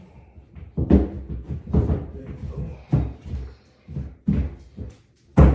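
A series of hard knocks on flat-pack furniture panels as parts are tapped into place during assembly, about seven irregular strikes roughly a second apart, the loudest near the end.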